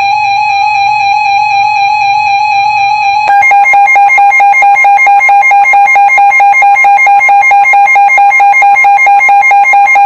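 Electronic alert tones of a mock Emergency Alert System broadcast: a steady, buzzy electronic beep, then about three seconds in a switch to rapid, evenly pulsing beeps.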